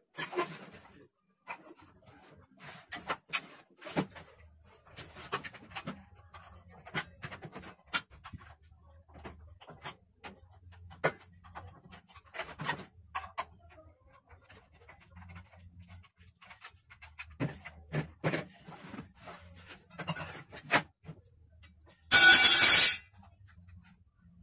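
Metal clicks, taps and knocks of a hex key and loosened parts as a circular saw is taken apart by hand. Near the end comes a much louder rasping burst of just under a second.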